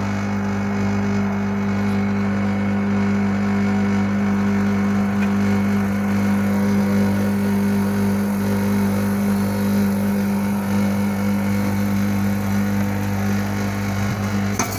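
LG WD-80155NUP front-loading washing machine running in its spin cycle: a steady, low hum that does not change.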